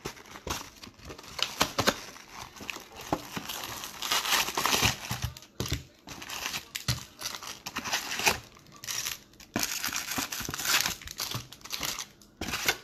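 Foil trading-card packs crinkling and rustling as they are pulled out of a cardboard hobby box and stacked, with the box itself handled and torn open. Irregular sharp crackles and rustles.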